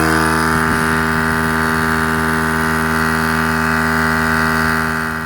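Air compressor running steadily as it inflates a freshly plugged car tyre from about 24 psi toward 32 psi. It is a loud, even hum that kicks on abruptly and tails off near the end.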